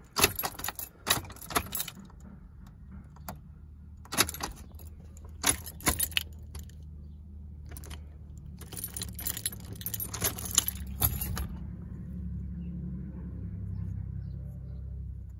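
Three bursts of metallic jingling over a low, steady hum that grows louder in the second half.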